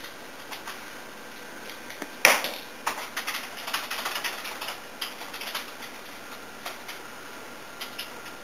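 Computer keyboard being typed on: scattered key clicks, one loud clack just after two seconds in, then a quick run of keystrokes for about three seconds before it thins out again.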